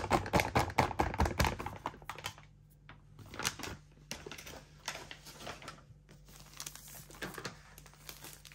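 Hand rubbing and squeezing dry rice flour in a stainless steel bowl, a dense crunching crackle for about the first two seconds, then sparser crackles.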